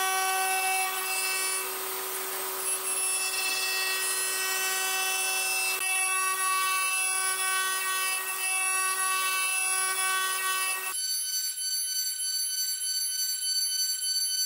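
CNC milling spindle with a small engraving cutter cutting brass, giving a steady high-pitched whine of several held tones over a cutting hiss. The tone changes abruptly about eleven seconds in, with the lower tones dropping out.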